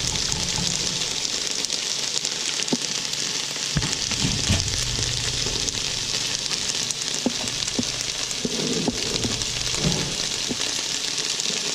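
Food sautéing in a frying pan, a steady sizzle with a few sharp clicks scattered through it.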